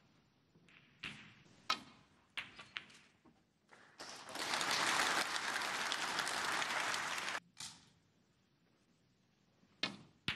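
Sharp clicks of a snooker cue striking the cue ball and of balls colliding, then about three seconds of audience applause that cuts off abruptly. Two more ball clicks come near the end.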